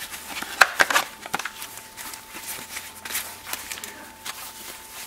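Handling noise from gloved hands gripping, flexing and turning a freshly molded black Kydex holster shell around a tape-wrapped blue training gun: a run of sharp clicks and crinkles, thickest in the first second and a half, then sparser.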